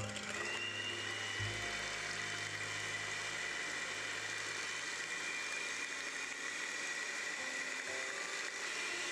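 Electric hand mixer with twin wire beaters switching on and spinning up, then running steadily with a high whine as it whips foamy egg and sugar for a genoise sponge batter.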